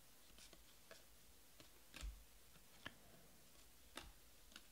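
Trading cards flipped through by hand: faint sharp clicks and soft taps of card stock, about one a second, over near silence.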